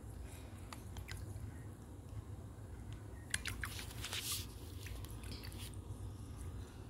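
Wooden stick stirring water in a small glass bowl: faint sloshing with scattered light clicks, and a short run of clicks and splashing about halfway through.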